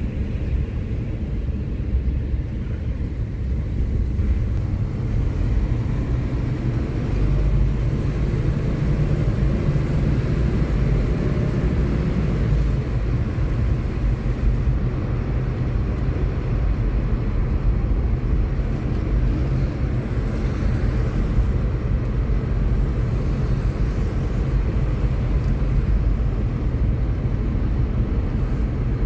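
Steady low rumble of engine and tyre noise inside a moving car's cabin, tyres running on wet asphalt.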